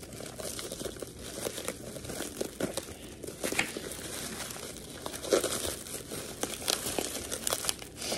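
Plastic bubble wrap crinkling and crackling irregularly as it is cut open and pulled apart by hand.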